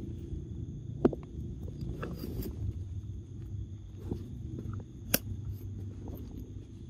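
Young macaques eating papaya and moving over rocks and dry leaves: scattered small clicks and knocks, the sharpest about five seconds in, over a steady low outdoor rumble and a faint high-pitched hum.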